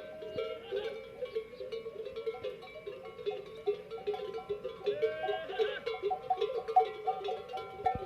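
Many bells hung on a herd of camels, clanking and ringing over one another in a continuous, irregular jangle.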